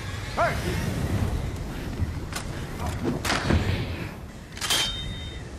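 Movie hand-to-hand fight: a short grunt near the start, then several hard hits and thuds over a steady low rumble.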